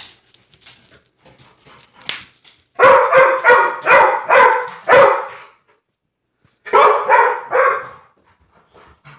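Blue-nose pit bull 'talking back' with short, pitched, grumbling barks. About six come in quick succession starting around three seconds in, then a pause, then about four more near seven seconds.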